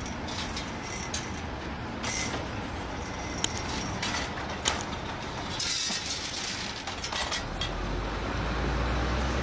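Drilling rig floor working noise: a steady mechanical clatter of steel handling gear, with two sharp metal clinks about a second apart, then a low engine rumble that comes up near the end.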